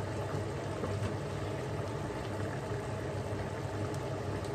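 Chicken feet in adobo sauce coming to the boil in a frying pan: steady bubbling with a few faint pops, over a steady low hum.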